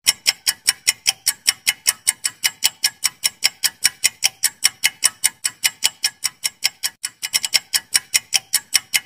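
Ticking timer sound effect, sharp clicks at about four a second, with a brief quicker flurry about seven seconds in.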